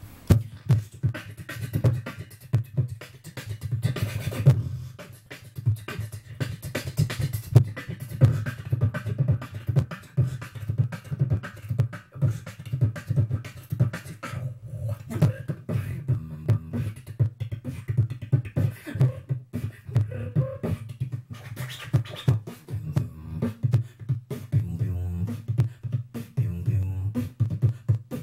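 Solo human beatboxing, close-miked into a handheld microphone: fast percussive mouth clicks and hits over a heavy, booming bass, with some hummed pitched tones mixed in near the end.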